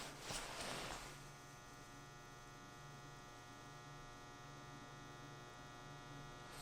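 Faint, steady electrical hum with a buzzy edge, settling in about a second in.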